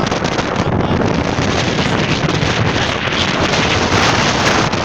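Wind buffeting the microphone in a steady loud rush, with ocean waves washing beneath it.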